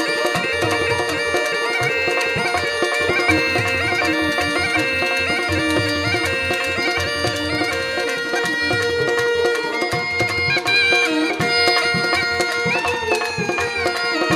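Rajasthani folk instrumental: a kamaicha's bowed melody over a steady drone, with morchang jaw harp and a hand-drum rhythm.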